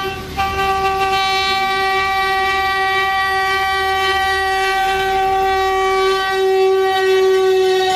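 Train horn sounding one long, steady blast, with a low rumble of the train underneath that drops away about six seconds in.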